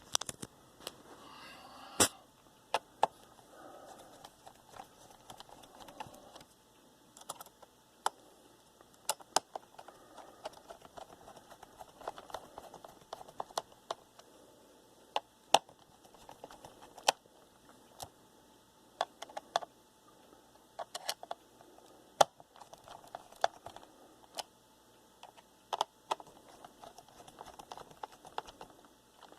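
Hand screwdriver tightening the small screws of a laptop CPU heat sink: sharp little clicks and taps of metal on screw heads and the heat sink, at irregular intervals, a few of them louder.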